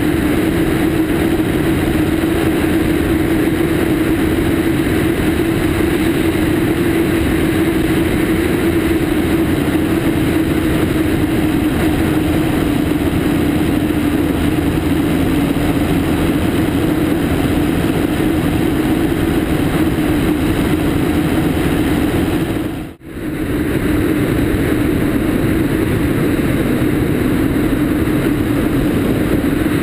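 Cessna 152's four-cylinder Lycoming O-235 engine and propeller running steadily at takeoff power as the plane lifts off and climbs, with air rushing past the wing-mounted microphone. The sound drops out for a split second about 23 seconds in.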